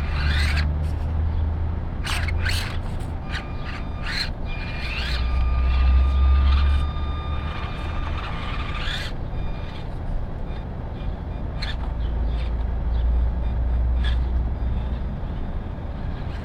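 Small electric motor and gears of a micro RC crawler whining. The whine winds up about three seconds in, holds steady, and winds down at about nine seconds. Scattered clicks come from the rig working over the terrain, above a steady low rumble.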